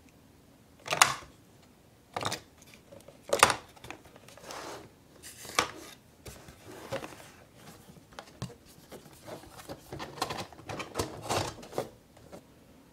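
Paper-craft cardboard box being handled: irregular clicks, taps and rustles of card, with the two loudest knocks about a second in and about three and a half seconds in, and a quicker run of small taps near the end.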